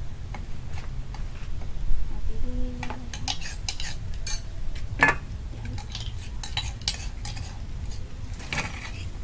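A metal utensil clinking and scraping against a cooking pot while stirring small shrimp just added to boiling water. The clinks come irregularly, the sharpest about five seconds in, over a steady low rumble.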